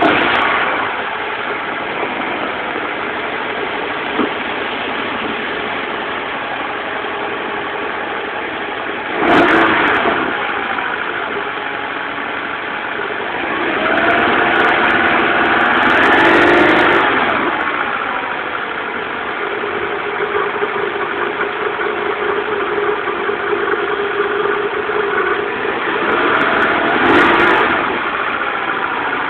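Toyota Celica ZZT231's 2ZZ-GE inline-four engine idling after a start, blipped briefly about 9 seconds in, revved up and let fall back over about three seconds around the middle, and blipped again near the end. From about 22 seconds in, the engine makes an abnormal contact-like noise, as if something is touching or rubbing.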